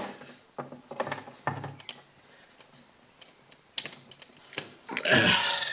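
Scattered light clicks and scrapes of a power plug and cord being handled and pushed into a wall socket, with a louder rustling burst near the end.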